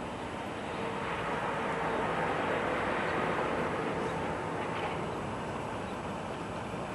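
Steady rushing noise that swells a little in the middle and then eases off.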